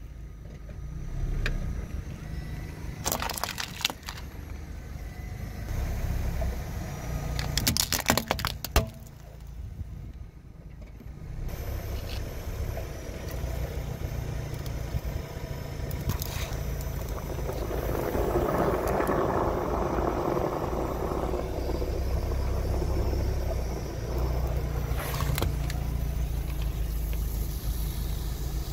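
A car running slowly as its tyre rolls over objects on asphalt, with a few sharp cracks in the first several seconds as things are crushed. Later a car tyre crushes an aerosol can of foam, and there is a hiss for a few seconds as the can bursts and sprays foam.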